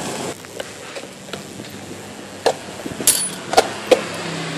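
Knocks and clicks of hard parts being handled as a motorcycle is put back together. A few small clicks come early, then four sharp knocks in the second half, one with a bright metallic clink.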